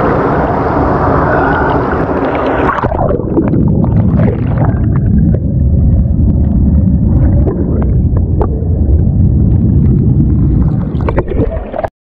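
Rushing, splashing water of a waterfall, loud and steady. About three seconds in, the high hiss drops away and a heavy low rumble takes over. It cuts off abruptly near the end.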